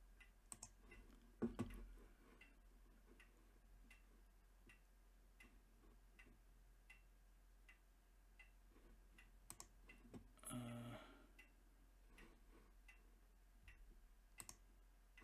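Near silence with faint, evenly spaced ticking, about two to three ticks a second. There is a single louder click about a second and a half in and a brief low hum about ten and a half seconds in.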